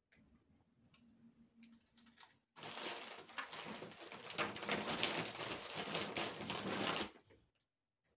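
Plastic packaging or a shopping bag being rummaged through, rustling and crinkling for about four and a half seconds and then stopping abruptly. Before it there is only a faint low hum.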